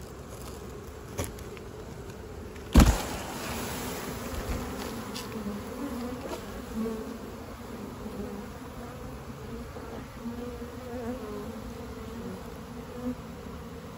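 A mass of honeybees buzzing after a swarm is dumped into a wooden hive box, a steady hum with a wavering pitch. A single sharp knock about three seconds in is the loudest sound.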